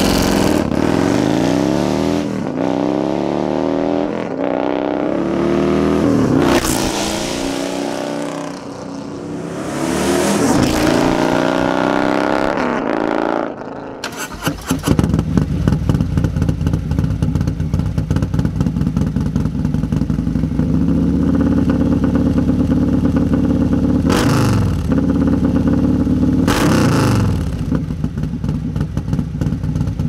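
Harley-Davidson Milwaukee-Eight V-twin built out to 128 cubic inches with a Feuling 538 cam, through D&D Big Bore exhaust. It first pulls hard up through the gears, its revs climbing and dropping at each shift. Then it idles steadily and is blipped sharply twice near the end.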